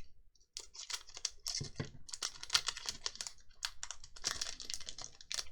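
Foil booster-pack wrapper being handled and picked at, an irregular run of crinkles and clicks as it is worked open.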